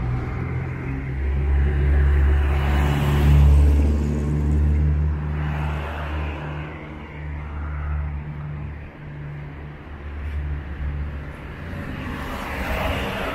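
Street traffic: motor vehicles running and passing, with a low, steady engine drone that eases off about two-thirds of the way through.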